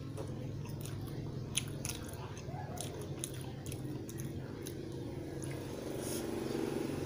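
A person chewing a mouthful of grilled tuna sandwich, the grilled bread giving many small crisp crunches, over a steady low hum.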